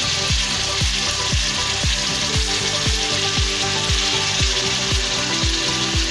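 Mutton pieces sizzling steadily as they fry in hot oil in a wok. Background music with a steady thumping beat plays over it.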